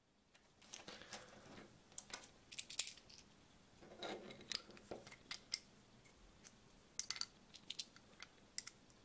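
Small copper 5-cent coins clicking against each other and against the hollow 3D-printed plastic tool as they are picked up and pushed into its top one by one: scattered light clicks, with a short scrape about four seconds in.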